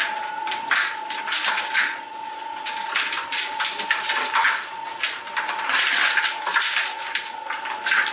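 Bakery work sounds: irregular short scraping and brushing noises, a few a second, over a steady high-pitched hum.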